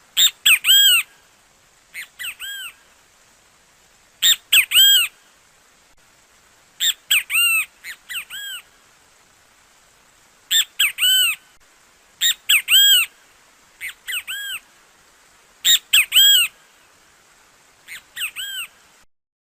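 Great kiskadee (bem-te-vi) calling its loud, shrill three-note "bem-te-vi" phrase over and over, about ten times at roughly two-second intervals, each note an arched, rising-then-falling whistle; the calls stop shortly before the end.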